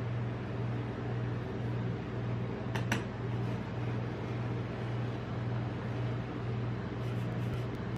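Steady low hum of the ice-roll pan's refrigeration unit, with a sharp double click from the metal spatula against the steel pan about three seconds in and light scraping ticks near the end as the next strip of ice cream is rolled.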